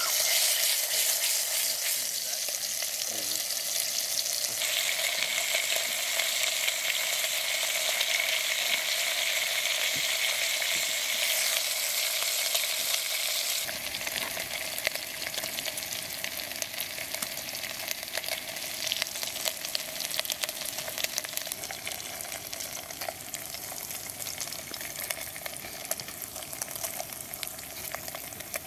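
Bacon frying in hot oil in a small camping pot over a gas canister stove: a steady crackling sizzle. It drops a little in level about halfway through.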